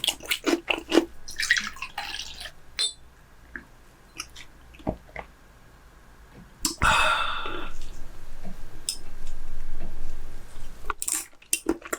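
Close-miked wet eating sounds from chewing raw chicken breast sashimi: sharp mouth clicks and smacks at first, then a few seconds of louder, steadier wet sound starting about seven seconds in.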